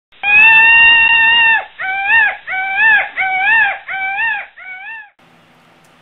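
A loud animal call with a clear pitch: one long held note, then five shorter notes that each rise and fall, growing quieter and stopping about five seconds in.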